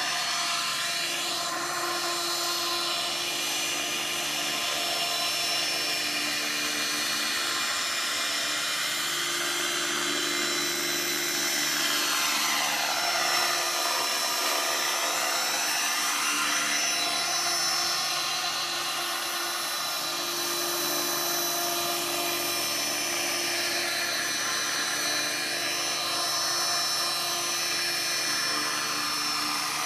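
Large radio-controlled model helicopter flying low: a steady high whine of its motor and spinning rotor, the tone sweeping up and down as it moves about.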